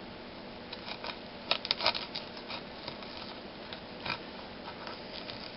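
Irregular light clicks and taps of a knife cutting a jalapeño pepper, loudest in a quick cluster about a second and a half in.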